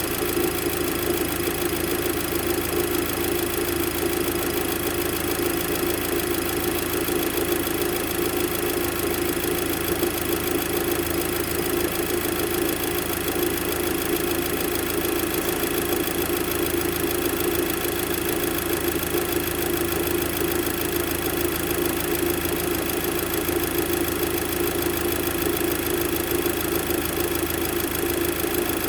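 Mk2 Audi TT engine idling steadily with its auxiliary V-belt removed, with a faint strange noise from the belt drive area still there.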